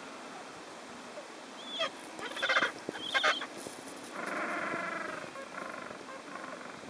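Gentoo penguins calling: a few short, sharp squawks a little after two seconds in and again about three seconds in, then one longer warbling call about four seconds in.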